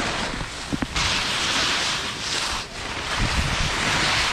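Skis hissing and scraping over snow on a descent, the hiss swelling about a second in and again near three seconds, with wind buffeting the microphone.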